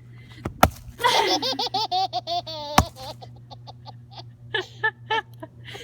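A baby belly-laughing in a long run of quick, high "ha" pulses, then in shorter bursts near the end. An axe splitting wood lands two sharp blows, one about half a second in and one near three seconds.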